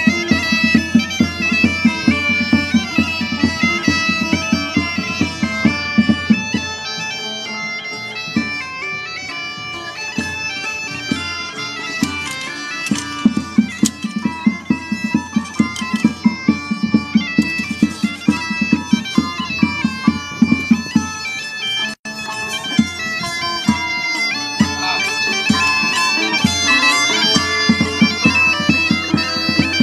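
A bagpipe playing a tune over its steady drone, with a drum beating time. The drone thins for a few seconds about seven seconds in.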